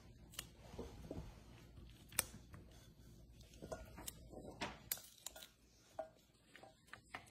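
Faint, scattered snaps and clicks of green beans being broken and trimmed, with beans tapping against a stainless steel bowl and a metal sheet pan; the sharpest clicks come about two and five seconds in.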